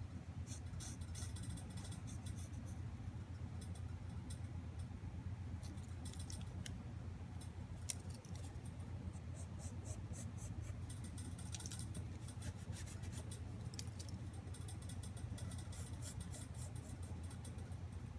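Pen tip scratching across sketchbook paper in short clusters of strokes as lines are drawn, over a steady low hum.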